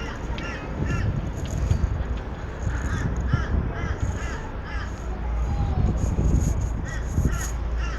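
Birds giving groups of short, harsh, repeated calls near the start, around three seconds in and again near the end, over a steady low rumble of boat engine and wind noise on the microphone.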